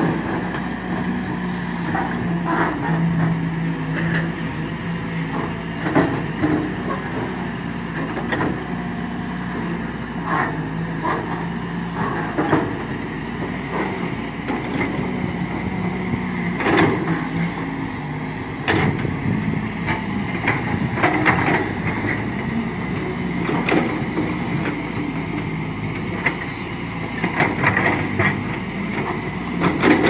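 Hydraulic excavators' diesel engines running steadily, with irregular clanks and knocks every second or few as the machines dig.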